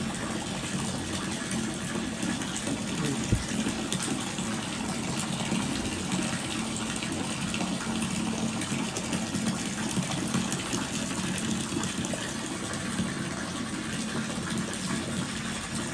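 Steady rush of running water pouring into a fish pond, with a faint low hum underneath and one brief thump about three seconds in.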